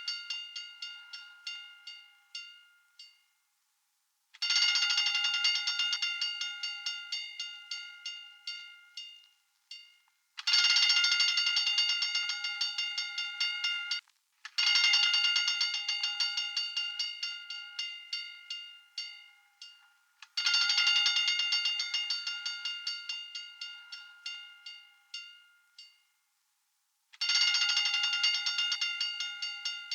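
Fire alarm bell ringing in bursts of rapid strikes, about four a second. Each burst starts loud and dies away over several seconds, then the bell starts again after a short silence, five times over.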